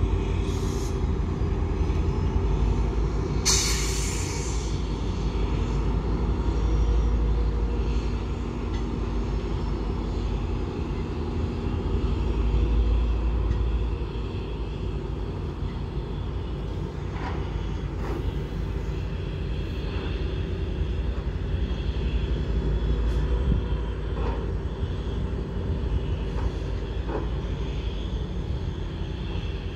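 EXO commuter train moving off at a distance: a steady low rumble and engine drone, with a short hiss about three and a half seconds in.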